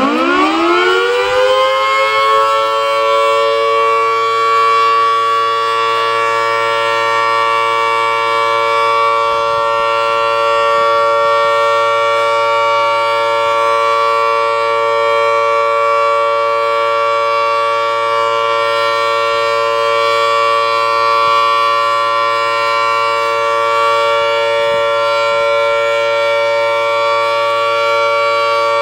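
Federal Signal Model 2T-120 two-tone outdoor warning siren winding up from a low pitch to full speed over about the first two seconds, then holding a steady, loud two-tone chord during a test.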